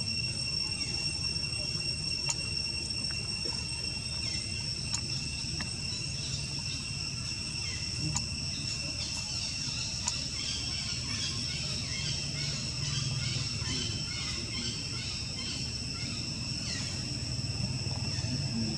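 A steady, high-pitched insect drone of one continuous tone, typical of crickets or cicadas, over a low background rumble, with scattered faint short chirps and clicks.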